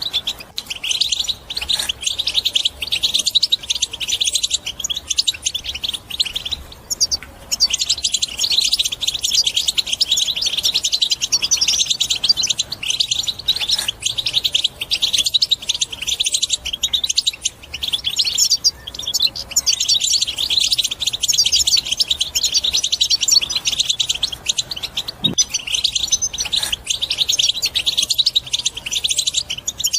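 European goldfinch singing a fast, near-continuous twittering song, with short breaks about seven seconds in and again near the middle. This is the vigorous 'batbata' goldfinch song that is played to caged goldfinches to set them singing.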